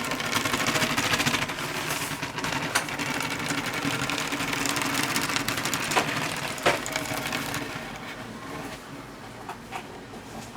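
Plastic Lego Technic mini bulldozer parts rattling in a fast, continuous clatter as the model is worked by hand. The clatter fades about two-thirds of the way through, leaving a few separate clicks.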